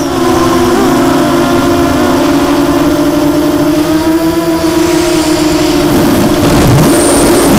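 Quadcopter's brushless motors and 6x4.5 carbon-reinforced props whirring in flight, close to the onboard camera's microphone: a loud steady hum with its pitch wavering slightly as the throttle changes, over rushing air noise.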